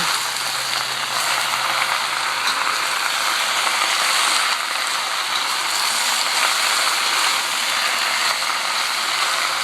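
Bok choy sizzling steadily in hot oil in a wok as it is stirred.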